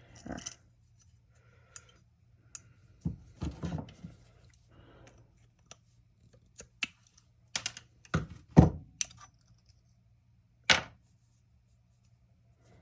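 Scattered clicks and knocks of an old, rusty carburetor and its small parts being handled. The loudest knocks come about two-thirds of the way through and again near the end.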